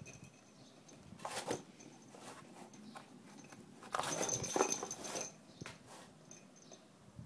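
Cardboard box batted and shoved across a wooden floor by a cat, giving scuffing, rustling knocks. There is a short burst about a second in and a longer one around four seconds in.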